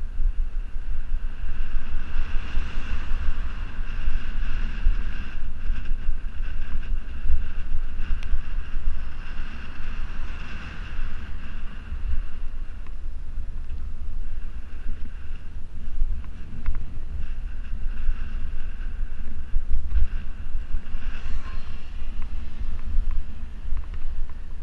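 Wind buffeting the microphone of a camera carried along a road, with a constant gusty rumble. A fainter hiss swells up a couple of times.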